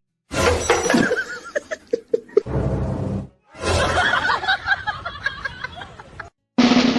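People laughing and snickering across a few short clips, each cut off abruptly by a brief silence.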